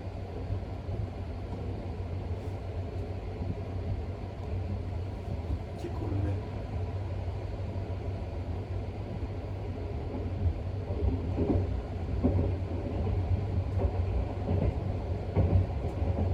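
Running noise of a 285-series sleeper electric train in motion, heard from inside the car: a steady low rumble.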